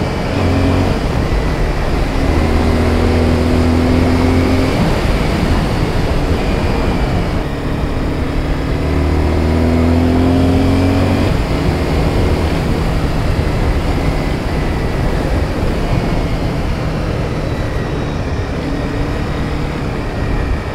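Honda sportbike's engine running while under way, under a steady rush of wind over the rider-mounted camera. The engine note holds strong and even twice, from about two to five seconds in and again from about nine to eleven seconds in.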